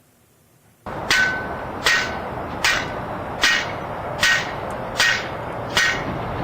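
Evenly spaced metallic clanging strikes, about one every 0.8 seconds, each ringing briefly, over a steady hiss that cuts in suddenly about a second in.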